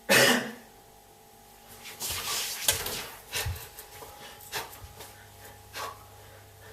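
A loud thump at the very start, then a series of lighter knocks, clicks and rustles as things are moved about on a kitchen counter.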